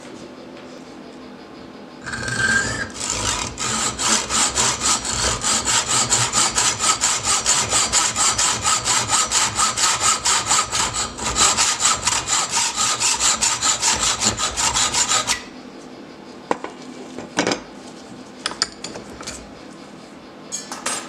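Hand hacksaw cutting a thin metal rod clamped in a bench vise: steady, even back-and-forth strokes with a metallic ring for about thirteen seconds, then stopping abruptly. A few light clicks and knocks from handling the vise and workpiece follow.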